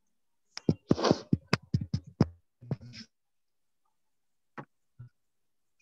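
Two fingertips tapping on the face at the EFT tapping points: a fast run of about ten taps in under two seconds, some breathy hiss among them, then two single taps near the end.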